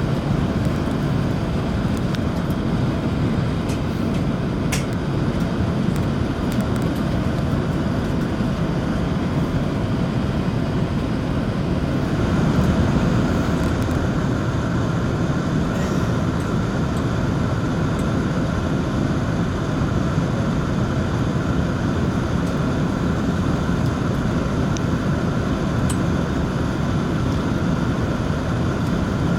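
Steady cabin noise inside an Airbus A380: a low engine and air hum that holds level throughout, with a few faint clicks.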